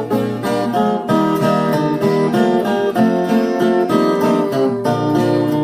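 A ten-string Rozini viola caipira playing an instrumental passage of a guarânia: a picked melody of quick single notes over lower sustained notes.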